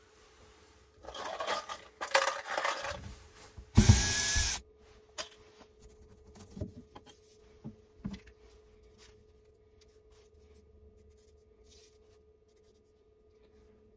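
Cordless drill-driver run in one short burst about four seconds in, removing screws from the boat's ceiling trim strips. Before it come rustling and scraping, and after it a few light clicks and taps as the trim and screws are handled.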